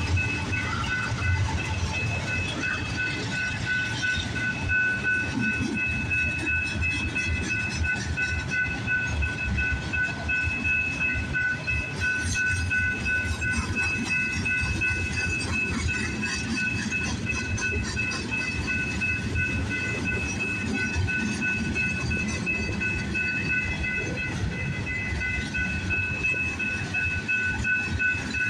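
Slow freight train's cars rolling past, with a steady rumble and irregular clacking of wheels over the rails, and a constant high-pitched ringing tone over it.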